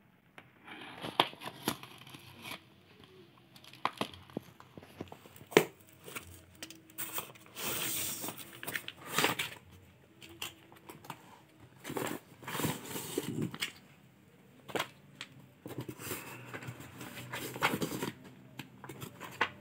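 A cardboard parcel being torn open and vacuum-sealed plastic pouches handled: irregular rips, crinkles and taps, with several longer tearing stretches.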